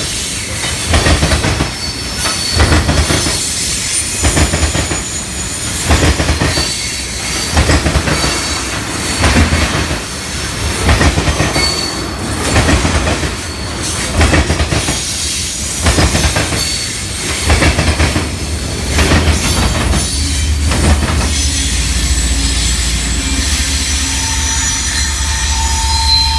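Freight train cars rolling past, their wheels clattering over the rail joints in a regular beat about once a second, with faint wheel squeal. For the last few seconds the clatter gives way to a steadier low rumble.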